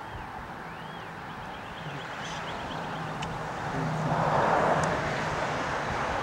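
A motor vehicle running, its engine and road noise swelling louder about four seconds in, over a steady low hum, with faint high chirps in the first few seconds.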